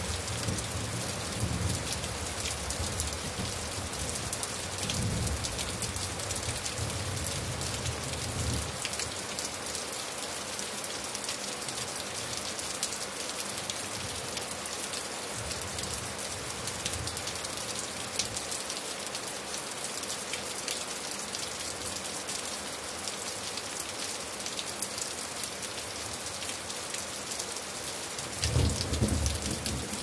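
Steady rain falling, a dense patter of drops. Low rolling thunder rumbles through the first several seconds, fades out, and returns louder near the end.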